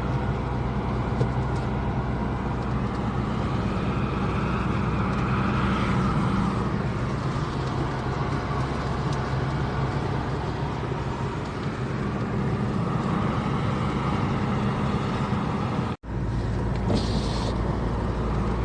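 Car driving along a road, a steady engine hum and tyre noise, cutting out for an instant about sixteen seconds in.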